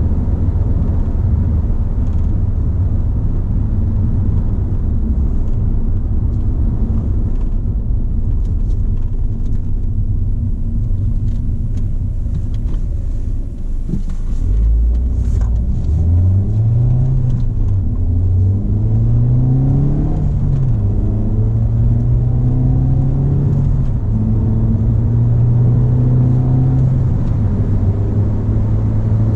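Ford Fiesta ST being driven: a steady engine and road rumble, then about halfway through the engine pulls with its pitch rising, dropping back twice as it shifts up, before it settles into a steady cruise.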